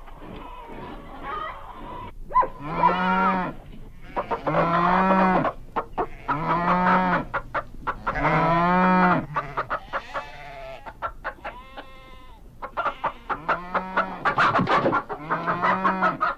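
Chickens clucking, with a series of about nine drawn-out calls, each roughly a second long, broken up by quick runs of clucks.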